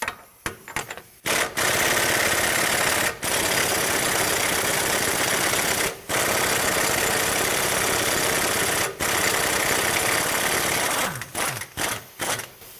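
Impact wrench hammering on a front axle nut in three-second runs with brief pauses between them, then a few short bursts near the end.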